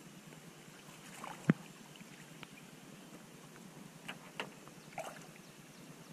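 A sharp knock about a second and a half in, then a few short splashes as a hooked fish thrashes at the surface beside a wooden boat, over a low steady water noise.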